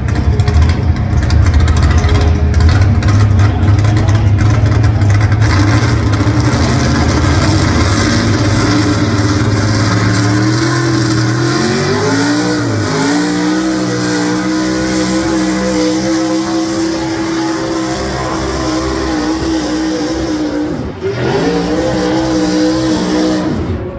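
Pulling truck's engine at full throttle on a truck pull: a heavy low rumble at first, then the revs climb about ten seconds in and hold high, dipping briefly and picking up again near the end.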